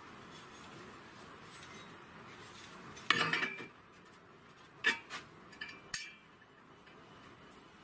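Steel parts clinking together as a steel mounting plate is set onto a steel frame and hex nuts are laid on it: one loud clank about three seconds in, then a few lighter clinks about two seconds later.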